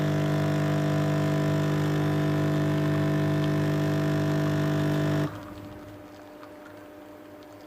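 Nespresso Essenza Mini coffee machine's pump buzzing steadily while it brews, then cutting off suddenly about five seconds in, leaving a faint hum.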